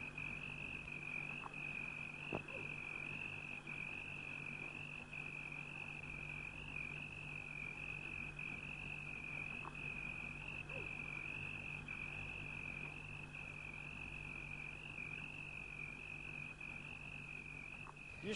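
A steady, high-pitched chirring chorus of night-calling animals that wavers slightly but never stops, over a faint low hum.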